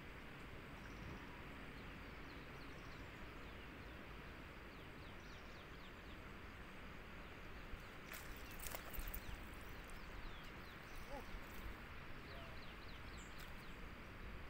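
Faint riverbank ambience: a steady outdoor hiss with scattered short, high bird chirps. About eight seconds in, a brief splash and a few sharp clicks as the fishing rod is lifted and the rig breaks the water's surface close to the bank.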